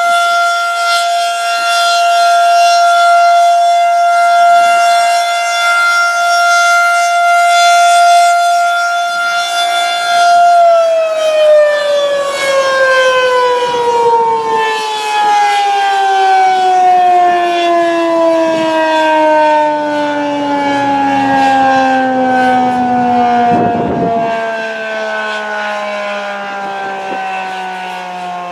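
Federal Signal 2001-SRN tornado siren sounding its steady alert tone. About ten seconds in it cuts off and winds down, its pitch falling slowly and smoothly until near the end.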